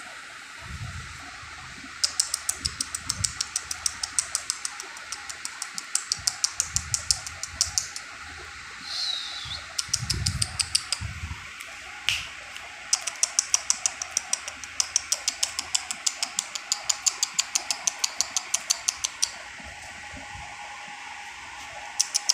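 A person making rapid runs of sharp clicks, about six or seven a second, to call husky puppies, with short pauses between runs. A brief high squeak comes about nine seconds in.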